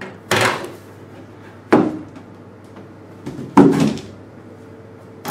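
Handling noise on a table: three loud bumps with a short rustle after each, about half a second in, just under two seconds in, and near four seconds in, as a cardboard box and the metal firewall are moved about.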